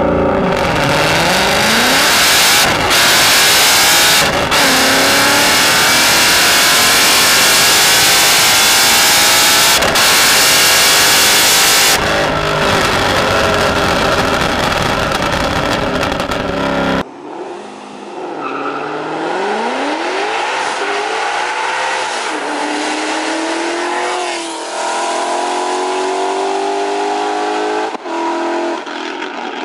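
Ford Mustang GT's 5.0-litre V8 exhaust, loud, with the engine revving: the pitch dips, then climbs steadily for about ten seconds. About halfway through it cuts to a second recording with less bass, where the engine revs down and up several times.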